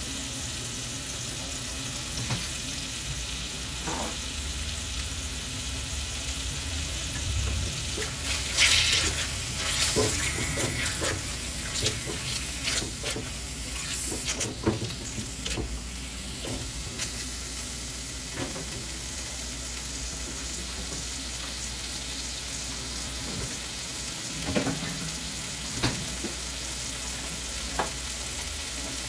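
Food frying in a pan with a steady sizzle, and a utensil stirring and scraping against the pan now and then, most busily between about 8 and 16 seconds in.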